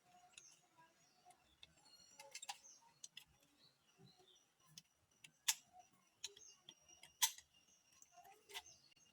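Sharp plastic clicks and taps from handling a 4G router's disassembled case and parts. About four distinct loud clicks, spread a second or two apart, over fainter ticking.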